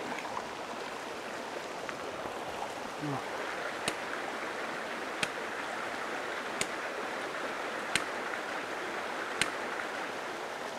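Five sharp chops of a machete into a green bamboo pole, evenly spaced about a second and a half apart, over the steady rush of a stream.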